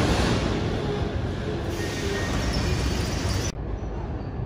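Kyiv Metro train, a blue Soviet-built 81-717 type, running along a station platform: a steady rumble and rush of noise. It cuts off abruptly about three and a half seconds in, giving way to the quieter hum of an empty station hall.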